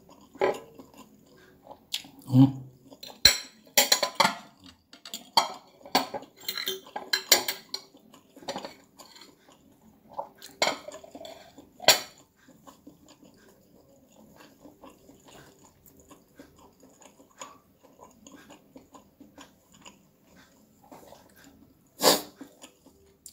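Metal spoon and fork clinking and scraping on a ceramic plate during a meal of fried noodles, with chewing. The clatter comes in quick strokes through the first half, then quieter chewing, and one sharp clink near the end.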